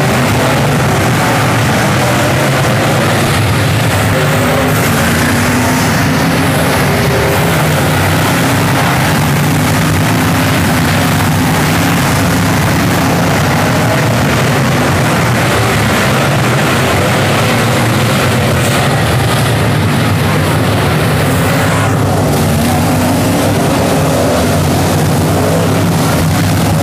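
Race car engines running loud and continuously, their pitch wavering as the cars rev and lift around the track.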